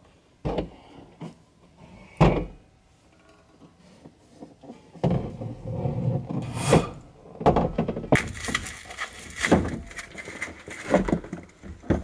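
Knocks and bumps of interior parts being handled inside a stripped car cabin: two sharp knocks near the start, then a busy stretch of irregular bumps and rustling in the second half.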